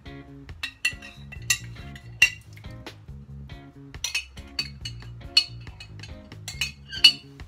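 A spoon clinking and scraping against the inside of a glass sauce jar as the last of the marinara is scooped out, a dozen or so sharp clinks at irregular intervals, over background music.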